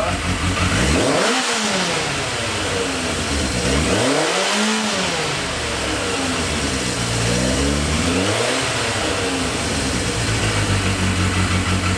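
Yamaha XJ650's air-cooled inline-four engine revved three times with the throttle, each rev rising and dropping back, then settling into a steady idle near the end. The idle has just been reset at the carburettors' idle screws after running lumpy, and the engine now runs fairly evenly.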